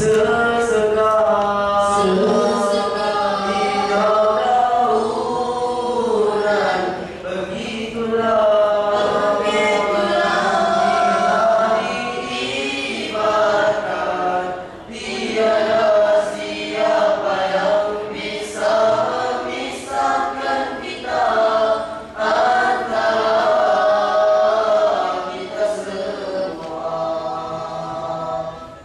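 Group of boys singing a selawat together into microphones, in long, drawn-out melodic phrases with short pauses between them.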